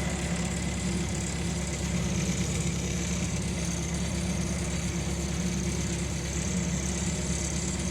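Skid steer engine running steadily at a constant low drone.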